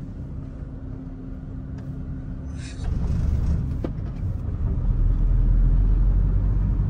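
A car driving, heard from inside the cabin: a steady low engine and road rumble that grows louder about three seconds in and again near five seconds, as the car picks up speed, with a brief hiss just before the first rise.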